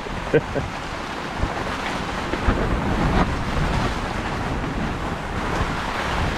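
Strong storm wind and heavy rain making a steady, surging noise, with wind buffeting the microphone.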